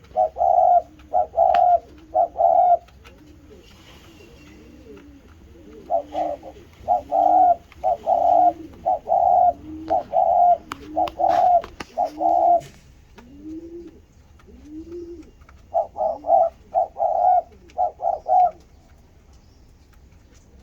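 Spotted doves cooing repeatedly: loud, short coos in quick runs, with softer coos between them that rise and fall in pitch.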